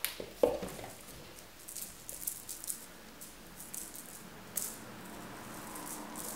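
A cat batting at a small toy ball hanging on a string, making a run of light, irregular clicks and rattles, with one louder knock about half a second in.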